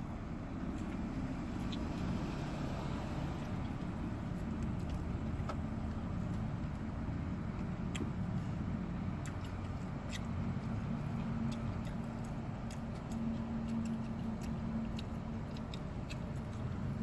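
Steady low hum of a car with its engine running, heard from inside the cabin, with scattered light clicks and crackles as food is handled.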